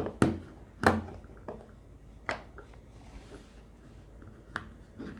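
Hard plastic clicks and knocks as a plug-in air freshener warmer and its refill bottle are handled and fitted together: two loud sharp knocks in the first second, then fainter single clicks a few times after.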